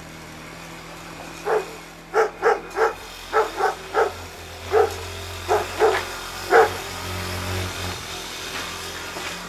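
A dog barking, about eleven short barks in quick irregular runs, over the steady low hum of an engine running.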